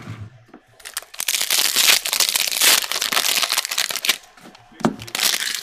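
Clear plastic wrapping on trading-card packaging being torn open and crinkled by hand, a loud dense crackling for about three seconds, then a shorter burst near the end.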